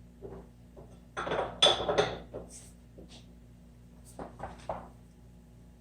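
Metal tooling and transmission parts clinking and knocking together on a mill being used as a press: a quick cluster of sharp clinks about a second in, then a few lighter ones about four seconds in.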